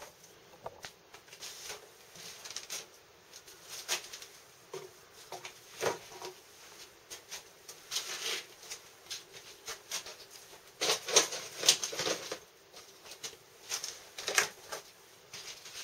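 Flower pots being set down and shifted among other pots, with bare pruned twigs rustling against them. Irregular knocks, scrapes and rustling come in clusters, busiest about halfway through and again a little later.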